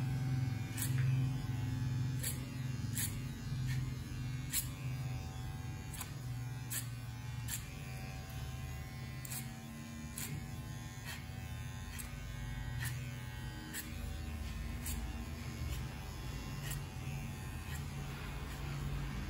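Cordless electric hair clipper running steadily, cutting hair over a comb, with sharp clicks about once a second.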